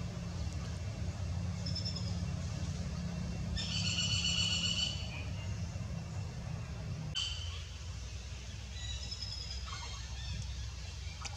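Several high-pitched animal calls: short ones about two seconds in and again near the end, and one held for about a second and a half around four seconds in, over a low steady rumble.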